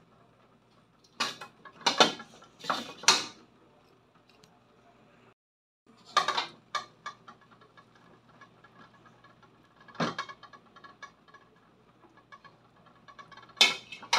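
Metal ladle clinking and scraping against a stainless-steel stockpot while stirring boiling chicken broth, in several short clattering bursts: a group of three in the first few seconds, then single bursts about six and ten seconds in and just before the end.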